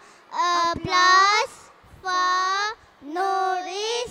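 A young child singing without accompaniment into a microphone, in four short phrases of held, slightly wavering notes with brief pauses between them.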